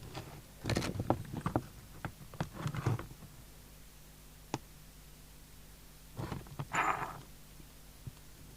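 Bench handling sounds from work inside a CB radio: clusters of small clicks and knocks as wires are disconnected from a switch, a single sharp click midway, and another short run of clicks and rustling near the end, over a faint steady hum.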